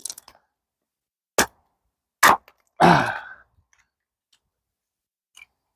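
Axe strikes on a log of dried oak firewood being split: two sharp knocks a little under a second apart, then a longer, louder sound about three seconds in.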